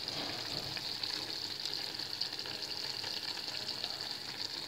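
Vegetables in a thick tomato sauce sizzling and simmering in a pan on the stove: a steady crackling hiss.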